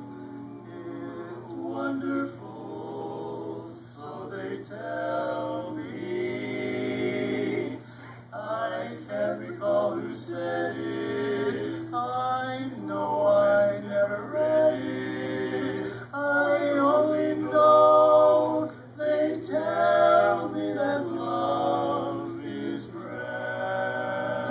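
A male vocal quartet singing a cappella in close harmony, in sung phrases with brief breaks between them.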